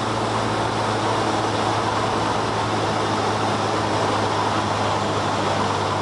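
Cessna light aircraft's piston engine and propeller droning steadily, heard from inside the cabin as a constant low hum under a broad rushing noise.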